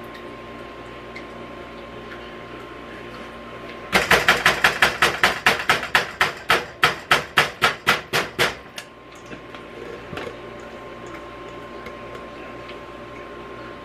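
A quick run of about twenty sharp raps on a metal springform cake pan, roughly four a second, starting about four seconds in and stopping after some five seconds.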